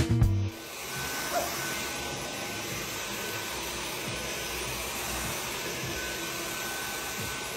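Stick vacuum cleaner running steadily on carpet, a continuous hiss with a faint high whine, starting about half a second in.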